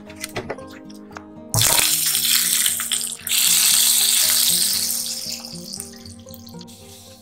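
Butter sizzling hard in hot caramel in a frying pan. The hiss starts suddenly about a second and a half in, surges again about a second later, then dies down over a few seconds. Background music plays throughout.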